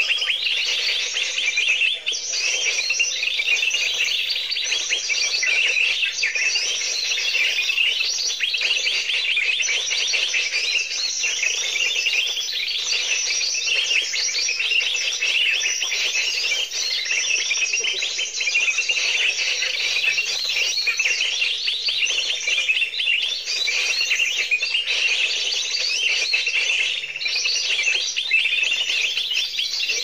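Electronic bird-call lure player (a 'mesin ATM' trapping caller) playing a loud, dense, unbroken mix of recorded bird chirps and trills, which cuts off suddenly at the very end.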